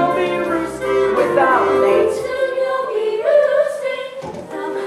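Music: a stage-musical song sung with accompaniment, the voices holding and gliding between notes.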